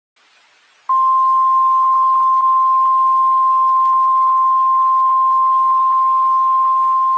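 NOAA Weather Radio's 1050 Hz warning alarm tone: one loud, steady tone that starts suddenly about a second in over radio hiss and holds without a break. It signals that a warning broadcast, here a severe thunderstorm warning, is about to follow.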